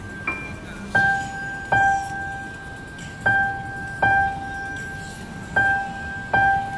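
Piano-like keyboard music: one high note struck over and over, in pairs about every two and a half seconds, each note fading after the strike.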